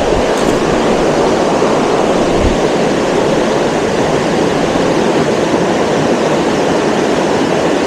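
Steady, loud rush of flowing stream water close to the microphone.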